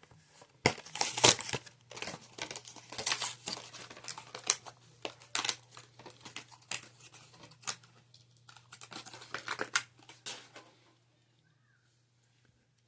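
Plastic and cardboard packaging of a Hot Wheels car crinkling and tearing as it is opened by hand, in irregular bursts with sharp clicks, stopping about eleven seconds in.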